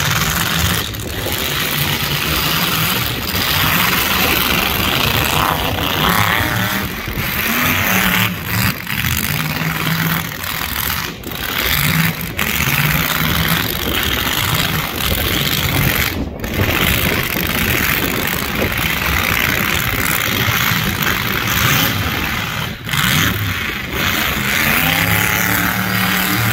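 Engines of several battered compact pickup trucks revving hard and running loudly through upright exhaust pipes, rising and falling in pitch as they push through the mud.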